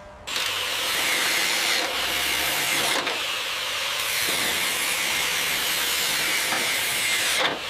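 A power tool cutting into corroded steel hull plating: a loud, steady hiss that starts about a third of a second in, dips briefly two or three times, and stops just before the end.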